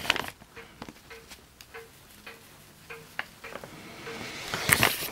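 A plastic bag of parting powder crinkling and rustling as it is handled and shaken over a sand mould, with scattered light clicks. The rustling grows louder near the end. Underneath, a faint regular tick comes about twice a second.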